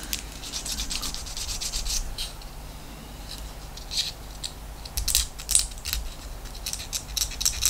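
Irregular light scratching and rubbing from hands working a small 3D-printed plastic model kit part, with a few light clicks.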